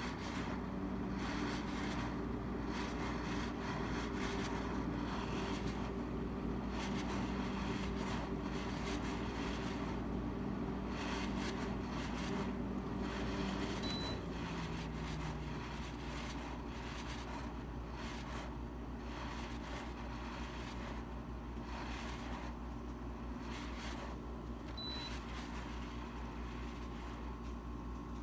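Frigidaire FGRQ06L3T1 6000 BTU window air conditioner running: a steady rush of fan air over a pitched hum that shifts and drops away about halfway through, with irregular crackling and popping. The owner puts these noises down to water not draining from the unit.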